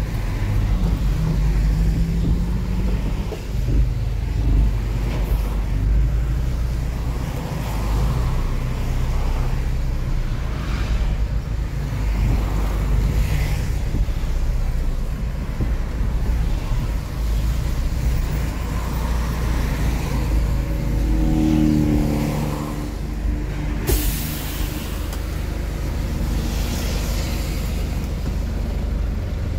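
Tow truck's engine running with a steady low rumble, its pitch rising and falling briefly around 21 seconds in, then a sudden short hiss of air brakes about 24 seconds in.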